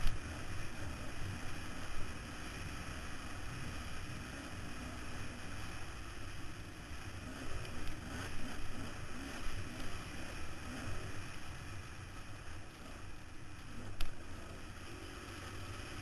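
Off-road motorcycle engine running under throttle, its pitch rising and falling, half buried in wind rushing over a helmet-mounted microphone. A few sharp knocks come at the start, about two seconds in and near the end.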